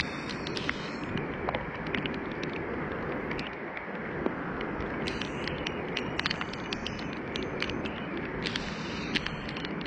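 Storm rain and wind: a steady rushing noise with many irregular sharp ticks of raindrops striking close by.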